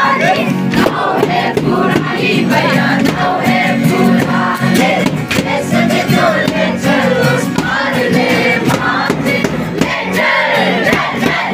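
A crowd of men, women and children singing a Christmas carol together, accompanied by an acoustic guitar, with hand claps throughout.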